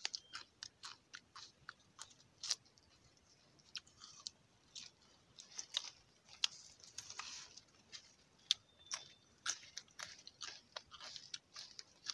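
A person biting and chewing a raw plant stalk and leaves, giving irregular crisp crunches, at times several in quick succession.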